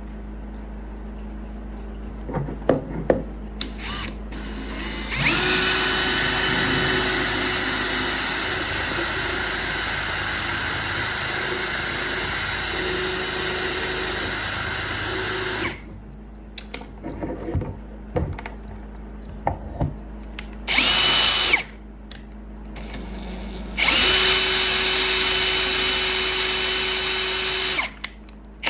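Handheld electric power tool, such as a drill, whining at high speed in three runs: a long one of about ten seconds, a short one near the middle and another of about four seconds near the end. Light knocks and clicks come in the pauses between runs.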